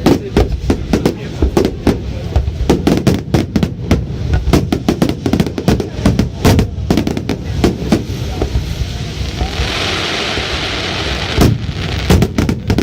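Fireworks going off in a rapid, irregular barrage of bangs, several a second. Past the middle the bangs give way to a steady hiss for about three seconds, then pick up again.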